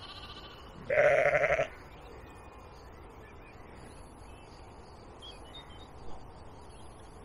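A sheep bleating once, a short wavering call about a second in, over faint outdoor background noise.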